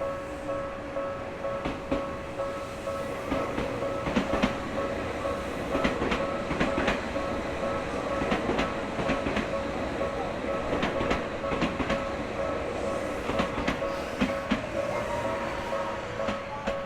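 A train passing, its wheels clicking and clacking irregularly over the rails, over a steady held tone.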